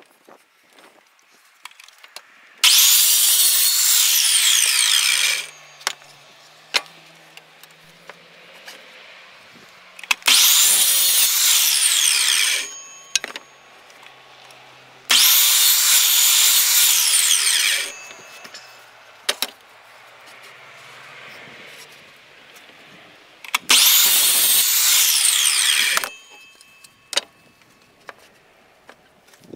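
Electric miter saw cutting a wooden 2x4 four times. Each cut is a loud, high motor whine of two to three seconds that starts and stops abruptly, its pitch sagging as the blade works through the wood.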